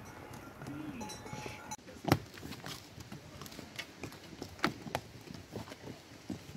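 Hooves of saddled pack horses walking on a dry dirt trail: irregular clip-clop knocks, the loudest about two seconds in.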